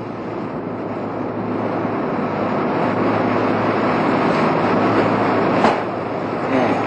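Engine and road noise inside a moving taxi cab: a steady rush with a low hum that swells slightly after a couple of seconds, with one short knock about five and a half seconds in.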